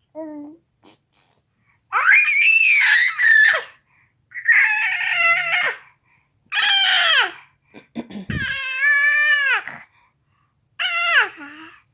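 Baby girl letting out five loud, high-pitched screams, each lasting one to two seconds with short pauses between, most dropping in pitch at the end.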